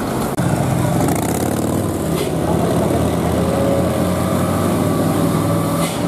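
Road vehicles' engines running close by as traffic passes, with a steady low drone that gets louder a moment in.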